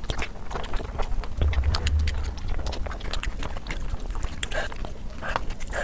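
Close-miked chewing of a mouthful of biryani: wet smacking and clicking mouth sounds in quick, irregular succession, with the squish of rice and curry being gathered by hand.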